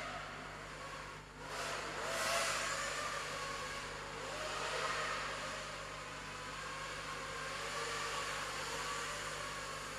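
FPV racing quadcopter (QAV210 frame, 2300kv brushless motors, 5-inch props) in flight, its motor and propeller whine rising and falling in pitch with the throttle. It drops briefly just past a second in, then climbs sharply, with another swell near the middle.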